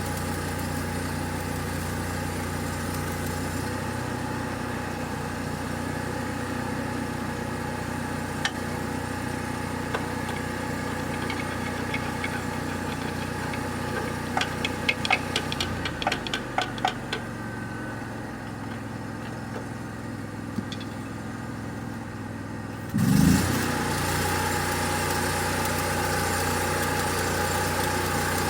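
An engine running steadily. About halfway through comes a quick run of sharp clicks and the low hum drops away; a few seconds before the end there is a sudden loud surge with a falling low tone, after which the engine runs louder.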